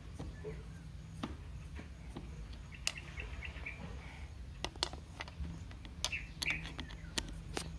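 Scattered light clicks and ticks of a screwdriver turning a screw out of a motorcycle's plastic fairing panel, more frequent in the second half. Birds chirp briefly in the background.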